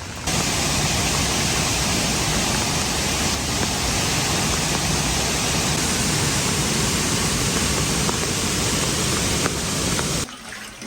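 Steady, loud rush of running water, like a stream or waterfall close by. It starts abruptly at the beginning and cuts off suddenly about a second before the end.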